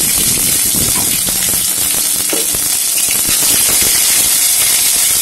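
Ginger paste and tempering spices (dried chilli, fenugreek) frying in hot mustard oil in a kadai: a steady sizzle with many small crackles and pops.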